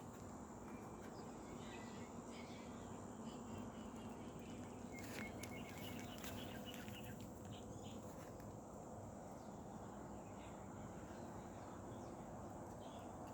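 Faint, steady ambient background noise with a low hum and a few soft clicks and faint high chirps.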